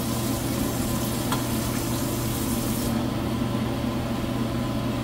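Watery onion-tomato masala simmering in a frying pan on a gas burner: a steady sizzle, with a low steady hum underneath. The higher hiss fades about three seconds in.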